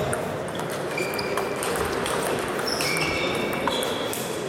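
Table tennis rally: the celluloid ball clicks off bats and table amid the clatter of other tables' rallies echoing in a large sports hall, with a few short high-pitched squeaks about one and three seconds in.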